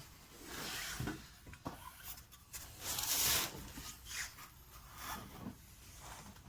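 Hand tools and metal being handled during car suspension work: irregular rubbing and scraping with a few light knocks. The loudest is a scrape of about half a second, roughly three seconds in.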